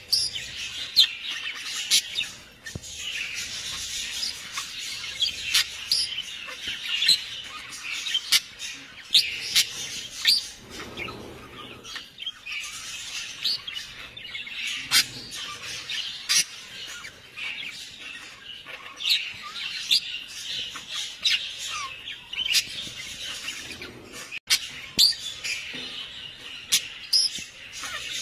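Birds chirping and tweeting: a steady stream of many short, high calls with sharp clicks among them.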